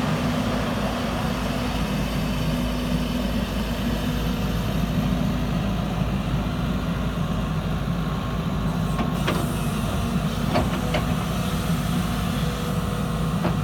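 Diesel engine of a JCB 220LC Xtra tracked excavator running steadily at a constant speed, with a few light clicks about two-thirds of the way through.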